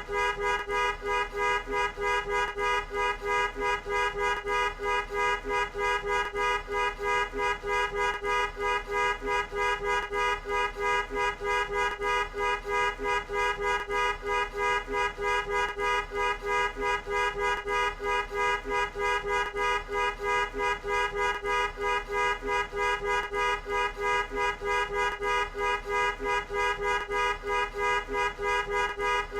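Two-tone car horn honked over and over in short, evenly spaced blasts, about two and a half a second, without a pause.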